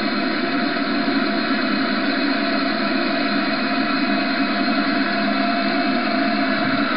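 Large scale-model Bell 430 helicopter running on the ground with its rotors turning, heard as playback through a TV speaker: a steady rushing noise with several steady tones under it.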